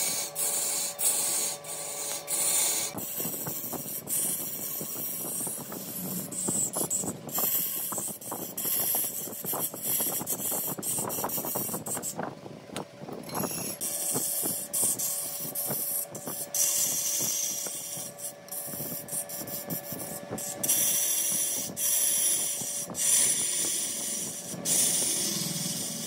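Wood lathe running with a steady hum while a tool works the spinning wood, giving bouts of hissing and scraping. The hiss breaks off briefly several times, most clearly about twelve seconds in.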